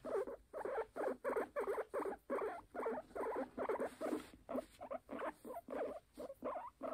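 Guinea pig making a rapid series of short calls, about four a second, in an even rhythm.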